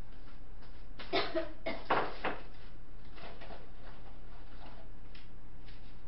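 Cups and kitchenware being handled out of sight while coffee is being made: a cluster of sharp clinks and knocks about one to two seconds in, then a few fainter ticks, over a steady low electrical hum.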